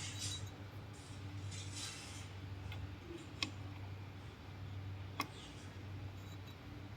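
Small metal engine parts clicking twice, about two seconds apart, as a spring-loaded scissor gear is worked into place, over a steady low hum.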